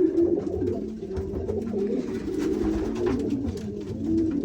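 Racing pigeon cock birds cooing in the loft: several low coos overlapping without a break.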